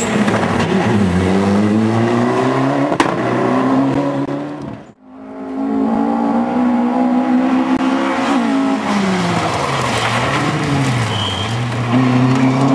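Rally car engines revving hard on a gravel stage, climbing in pitch through the gears, with a sharp crack about three seconds in. The sound cuts out briefly around five seconds, then a second rally car's engine runs at high revs, drops in pitch as it lifts off and climbs again near the end.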